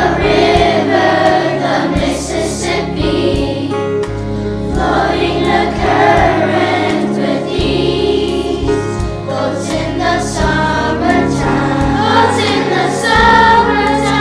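A group of children singing a song together in chorus, over an instrumental accompaniment.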